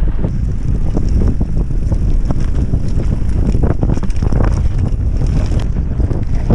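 Wind rushing over the microphone as a mountain bike descends a dirt trail, with frequent short knocks and rattles from the bike over the bumpy ground.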